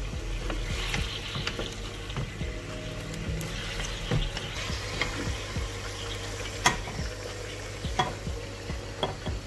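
Beef and vegetable stir-fry sizzling in its thick sauce as a wooden spatula stirs it around the pan. There are scattered sharp clacks of the spatula against the pan, the loudest about two-thirds of the way through.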